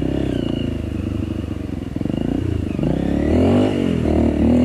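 Trail motorcycle engine running under load, then revving up and down and getting louder about three seconds in.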